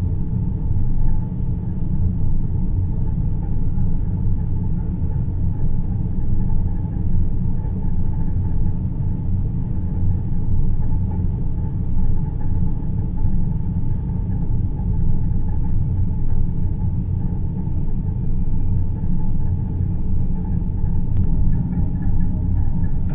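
Produced deep-space ambience: a steady, deep rumbling noise, strongest in the low bass, with a fainter hiss layered above and no music.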